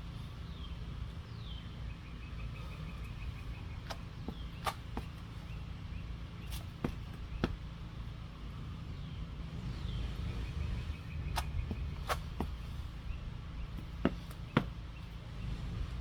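A bird singing the same phrase twice, falling chirps followed by a quick trill, over a steady low rumble. Sharp taps and thuds from the burpees, hands and feet landing on the ground, come every second or two.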